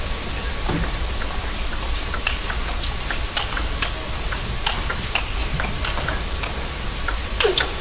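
Table tennis rally: the celluloid ball clicking off the bats and the table in quick, irregular succession.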